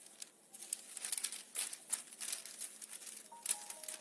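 Rustling and crinkling of a large sheet of thin calligraphy practice paper being lifted and folded, a busy run of quick crackles that starts about half a second in.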